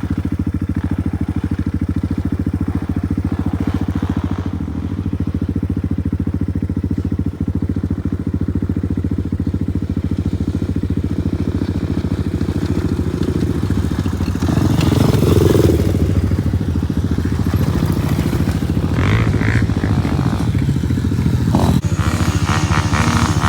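Single-cylinder off-road engine running steadily close by, swelling louder for a moment about two-thirds of the way through.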